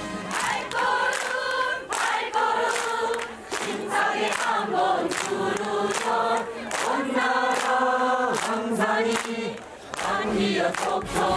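A choir singing a North Korean song in praise of the new leader.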